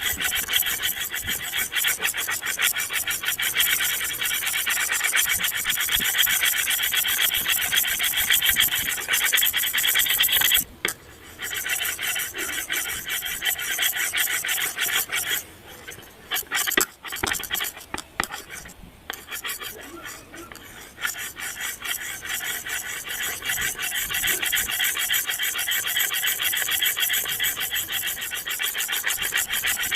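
A continuous harsh, rasping scratchy noise that drops away briefly about 11 seconds in and again, unevenly, between about 15 and 19 seconds.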